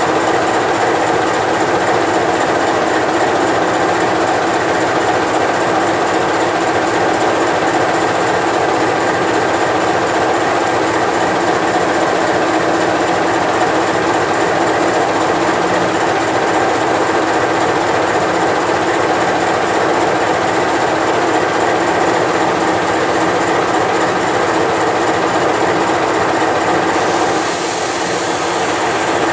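CC 206 (GE C20EMP) diesel-electric locomotive idling steadily, a constant diesel engine drone with a few steady hum tones. Near the end a brief high hiss rises over it for about two seconds.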